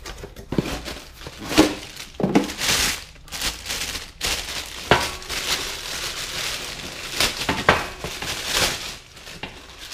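Cardboard box being opened and plastic packaging crinkling as a new oil pump is unwrapped: irregular rustling with several sharper crackles.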